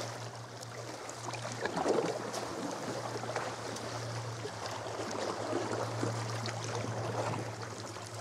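Sea kayak paddle strokes dipping into the water, with water splashing and gurgling around the hull, over a steady low hum. The loudest splash comes about two seconds in.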